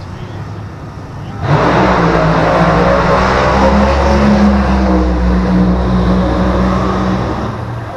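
Race car engine running loud and steady for about six seconds, starting suddenly and fading out near the end, typical of a drag car making a pass on the strip.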